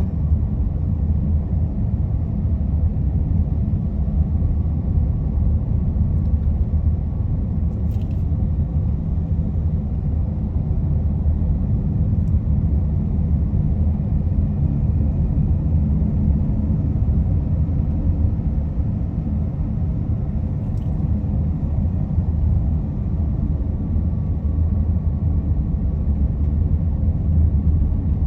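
Steady low rumble of road and engine noise inside a minivan's cabin while driving.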